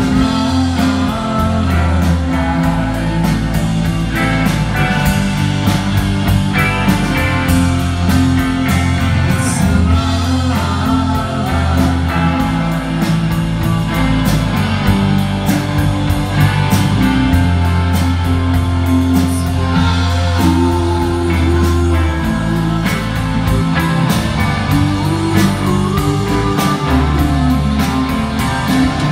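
Live rock band playing: electric guitars, bass and drums with a steady beat, heard loud through a club PA from among the audience.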